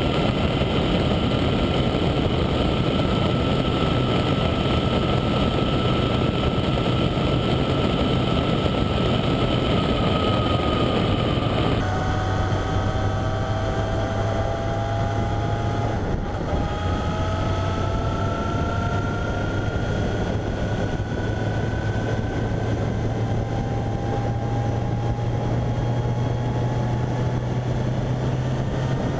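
A vehicle running at road speed: a steady engine drone under road and wind noise, with faint whining tones that climb slowly as it speeds up. The sound changes abruptly about 12 seconds in, and dips briefly around 16 seconds before the whine starts lower and climbs again.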